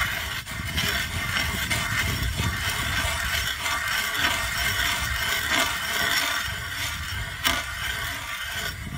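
Hand ice auger with a spiral flight drilling into lake ice: its blades grind and scrape steadily with a few sharp cracks, and the sound cuts off suddenly at the end.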